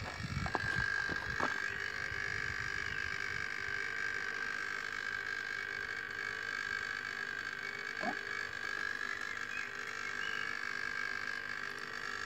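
Small electric pumps running with a steady, even hum: a water pump circulating cooling water through the condenser and back into a bucket, with the vacuum pump still running on the refrigeration system. A few knocks in the first couple of seconds.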